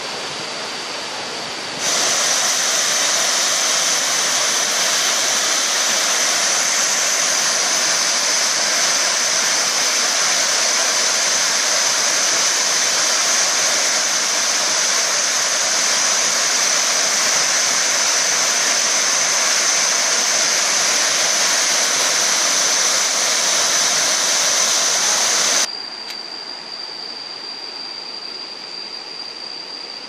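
Waterfall: a steady rush of falling water. It turns much louder and fuller about two seconds in, close under a cascade pouring into a rock pool, and drops back to a quieter, more distant rush near the end. A thin steady high whine sits over the water throughout.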